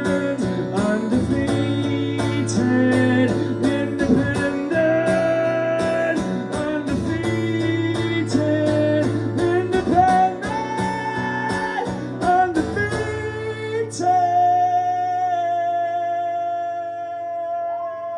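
Live solo acoustic guitar strumming chords under long, drawn-out sung notes. The strumming stops about fourteen seconds in, and a final chord and held note ring out to the end.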